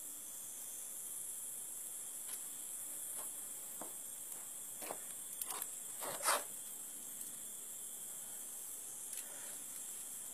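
Steady high-pitched drone of insects in the grass, with a handful of short scuffing noises through the middle, the loudest about six seconds in.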